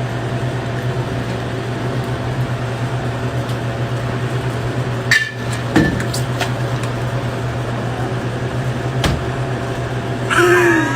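A steady low hum, with a few sharp clicks and knocks about halfway through and again near nine seconds. Near the end a cat starts meowing.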